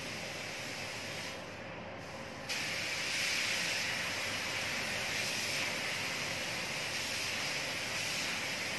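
Compressed-air paint spray gun hissing as it sprays. It cuts out for about a second near the start, then starts again, louder.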